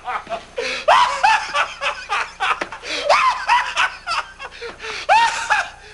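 High-pitched laughing and giggling, with several voices overlapping in quick rising-and-falling bursts.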